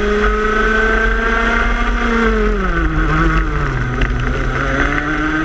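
Racing go-kart engine heard from onboard at speed. Its pitch holds high, drops from about two to three seconds in as the throttle comes off, then climbs again near the end as it accelerates.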